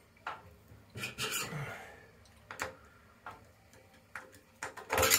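Scattered light clicks and scrapes of metal on metal as the centre screw is put through a chrome bath-waste plug grate and started into its thread, with a sharper knock near the end.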